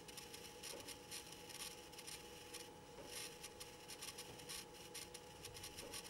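Very quiet room tone: faint scratchy rustles come and go irregularly over a steady faint electrical hum.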